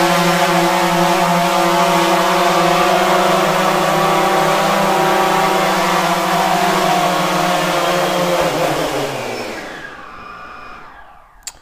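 DJI Phantom 3 Pro quadcopter's brushless motors and propellers running with a steady hum as it comes in to land, then spinning down with a falling pitch and fading out after about nine seconds. A short click comes near the end.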